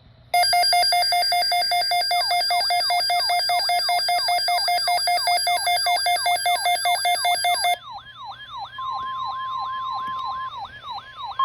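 Emergency Alert System alarm: a loud steady electronic tone layered with rapidly alternating warbling tones, joined about two seconds in by a yelping siren sweep that repeats about three times a second. The steady and warbling tones cut off suddenly about eight seconds in. The siren sweep carries on quieter, with a steady tone for a second or two.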